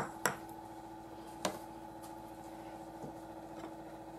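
A few light clicks of a metal spoon against a dish, over a steady faint hum.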